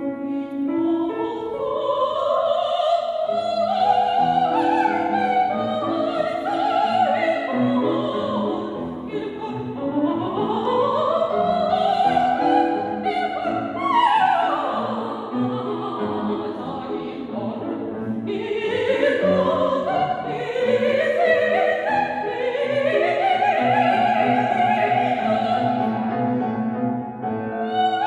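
Operatic soprano voice singing long, vibrato-laden phrases that sweep up and down, accompanied by a grand piano.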